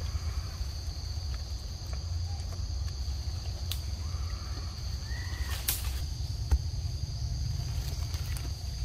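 Forest ambience: a steady high insect drone on two pitches over a low rumble, with scattered light clicks and a couple of faint short chirps, one rising and falling about five seconds in.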